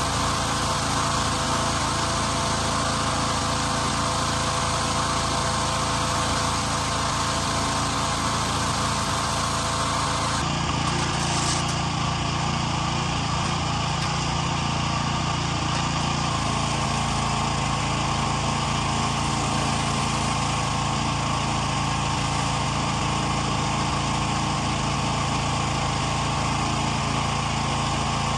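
Pressure washer's small engine running steadily under load, with the hiss of the high-pressure water jet from the wand.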